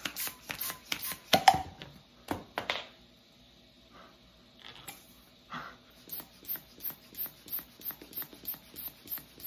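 Latex modelling balloon being inflated and handled. Irregular rubber squeaks and clicks come first, then after a quieter moment a quick, even run of short clicks or puffs, about three a second.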